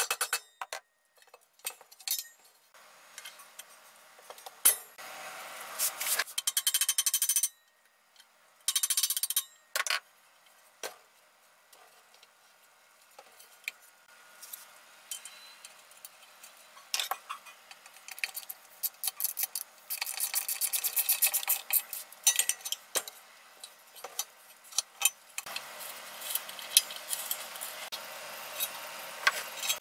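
Hand work on the aluminium housing of a Porter-Cable 7724 portable band saw during reassembly. Mallet taps and clinks of small metal parts sound against the casting, along with several bursts of rapid, evenly spaced clicking.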